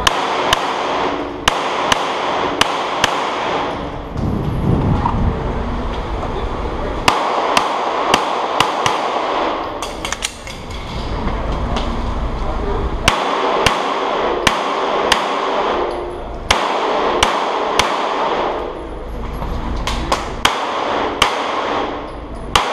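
Pistol shots fired in quick strings of rapid shots, with short pauses between strings as the shooter moves between firing positions. The shots ring sharply off the hard walls of an indoor range.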